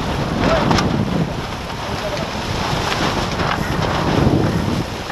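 Wind buffeting the microphone, with water rushing along the hull of a J24 sailboat under way.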